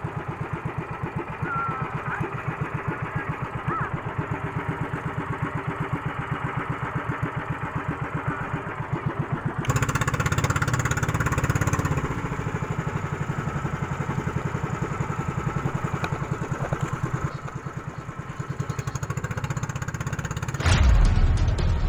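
Small engine of an outrigger banca running steadily with a rapid, even pulsing beat. About ten seconds in, a hiss of rushing water or wind rides over it for a couple of seconds, and near the end a louder low rumble comes in.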